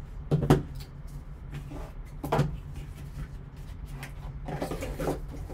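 A hard plastic graded-card slab and its foam-lined box being handled: two sharp knocks about half a second and two and a half seconds in, then softer taps and rustling near the end, over a steady low hum.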